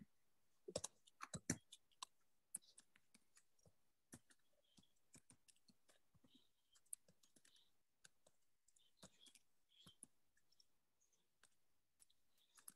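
Faint, scattered clicks of a computer keyboard and mouse: a quick run of keystrokes in the first couple of seconds, then occasional single clicks.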